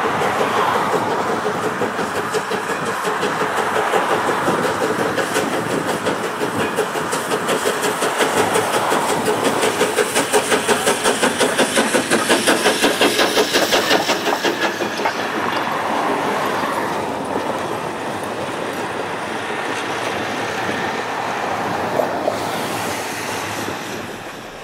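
Essex Terminal 9, an 0-6-0 steam switch engine, working hard as it passes close by: rapid exhaust chuffs, about five a second, loudest in the middle and easing off as it moves away.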